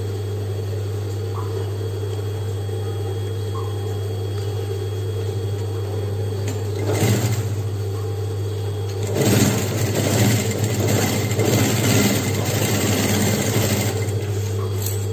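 Sewing machine stitching through folded leather-look fabric: a short run of a few stitches about seven seconds in, then about five seconds of steady stitching from around nine seconds, over a steady low hum.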